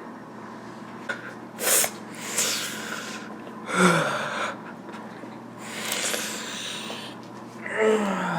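A person's heavy breaths and sighs, several in a row a second or two apart; two of them end in a short low groan that falls in pitch.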